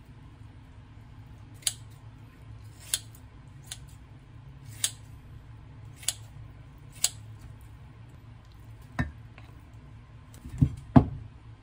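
Kitchen scissors snipping kimchi, six crisp snips about a second apart, followed near the end by a few dull thumps.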